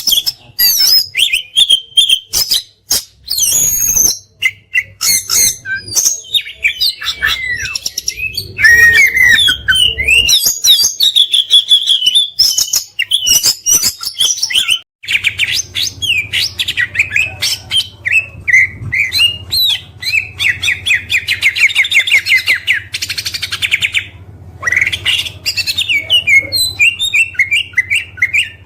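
Oriental magpie-robin (kacer) singing loudly: a varied run of whistles, slurred glides and phrases from other birds' songs worked in, with a fast burst of rapidly repeated notes about two-thirds of the way through. The song cuts abruptly a few times where passages of recording are spliced together.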